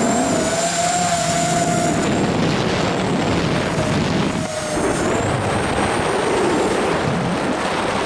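ZMR250 quadcopter's motors and propellers whining in flight, the pitch wavering up and down and dropping briefly about four and a half seconds in, over a steady rush of wind on the onboard camera's microphone.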